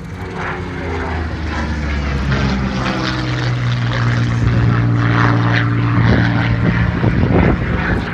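Hispano Buchon's Rolls-Royce Merlin V12 propeller engine running as the fighter flies its display pass, its note growing louder toward the end and sliding slightly down in pitch near the start.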